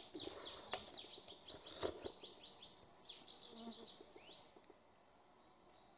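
Songbirds singing: quick runs of short falling notes, phrase after phrase, stopping about four and a half seconds in. A couple of soft clicks are heard early on.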